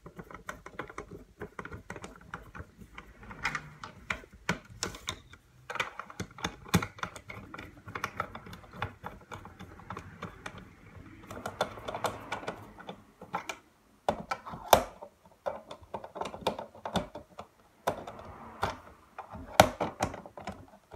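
Irregular clicks, taps and knocks of a screwdriver working screws into a plastic fan-heater case and of the case being handled, with a short rasping stretch about halfway through.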